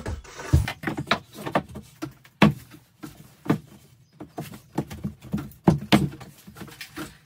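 Irregular knocks and taps, about two sharp hits a second, as a pine tongue-and-groove wall board is worked into place.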